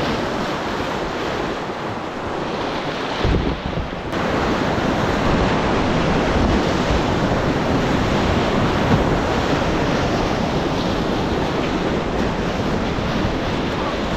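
Whitewater rapids rushing loudly around a kayak. A low rumble comes about three seconds in, and from about four seconds the rush of water grows louder.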